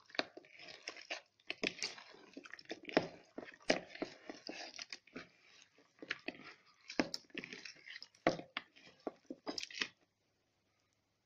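Pieces of raw rabbit meat being stirred and turned in a wet marinade of chopped vegetables, oil and white wine: irregular squelches and clacks that stop suddenly about ten seconds in.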